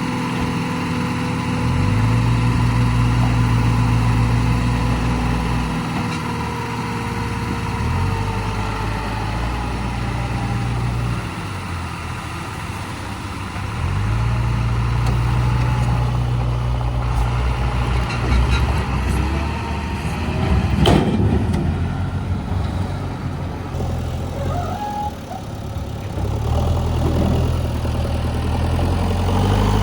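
Diesel engines of an excavator and a backhoe loader running as they load mud. The engine note swells under load for a few seconds at a time, then eases. A single sharp clank comes about twenty seconds in.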